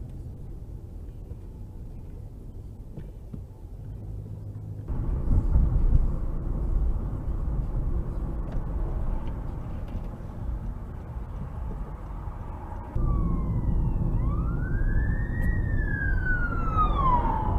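Steady vehicle road rumble that jumps louder about five seconds in and again about thirteen seconds in. From there on an emergency vehicle siren wails, its pitch sweeping up and then falling away near the end.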